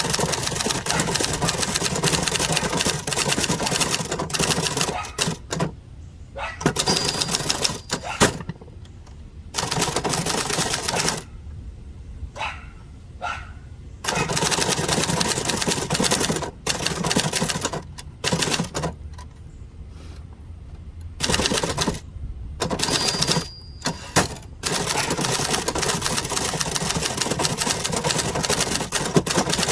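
1970s Adler Gabriele 25 manual typewriter being typed on: runs of rapid key strikes broken by short pauses, with a brief high ring twice.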